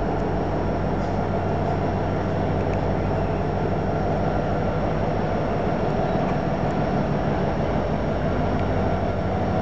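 Norfolk Southern SD70ACE diesel locomotives, EMD two-stroke V16 engines, approaching under power with a steady, even rumble.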